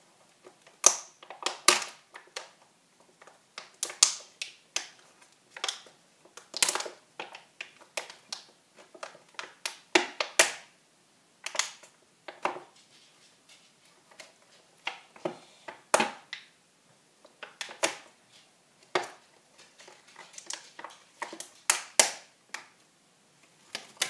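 Thin clear plastic food tub being handled and pried open, its lid and sides crackling and popping in irregular sharp bursts.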